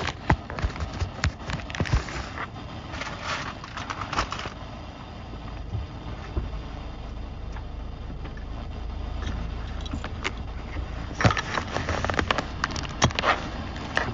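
Irregular clicks and knocks, clustered over the first few seconds and again near the end, over a low rumble that swells in the middle.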